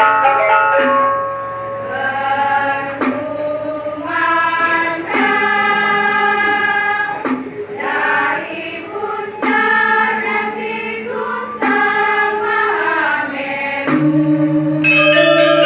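Choir singing held chords in slow phrases. About a second before the end, a bell-like accompaniment of quick struck notes comes in under the voices.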